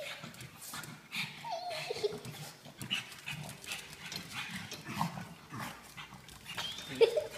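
Pug making short whines and grunts while it spars with a cat, with scattered taps of paws on a tile floor.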